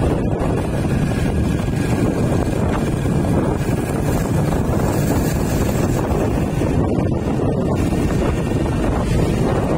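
Steady wind rush buffeting the microphone of a moving vehicle, with the vehicle's road and engine noise underneath.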